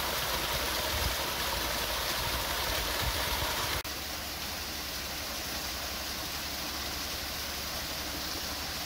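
Steady rush of water. It drops slightly in loudness at an abrupt change about four seconds in.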